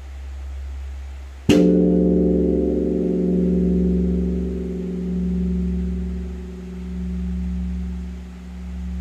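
Large Korean bronze temple bell (beomjong) struck once with a wooden log about a second and a half in, then ringing with a long hum that swells and fades slowly. The low hum of the previous stroke is still sounding before the strike.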